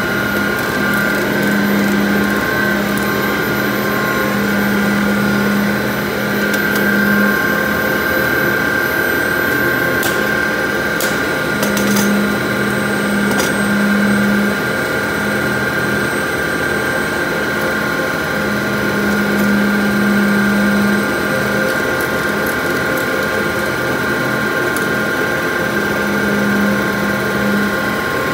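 Steady machinery din of an HDPE pipe production line and its coiler, with a high steady whine and a low hum that switches on and off every few seconds. A few sharp clicks come about ten to twelve seconds in.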